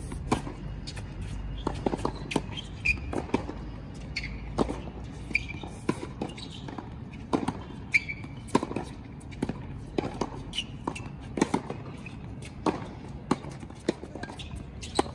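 Tennis rally on a hard court: sharp pops of rackets striking the ball and the ball bouncing, coming irregularly about every half second to second, with footsteps between them.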